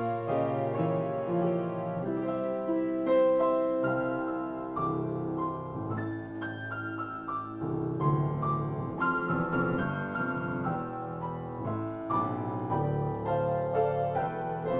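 Solo piano playing an improvised piece: held chords in the low and middle register with a steady flow of new notes above them.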